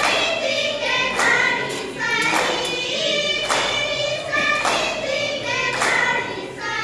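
A group of voices singing a Tharu folk song for a dance, with a sharp beat striking about once a second.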